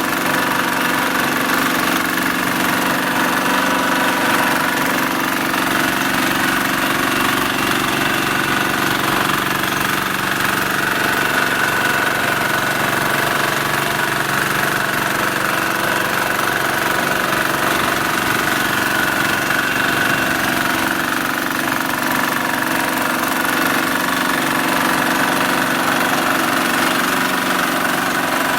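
Engine of a Fasta FVR850D ride-on vibratory road roller running at a steady, unchanging speed.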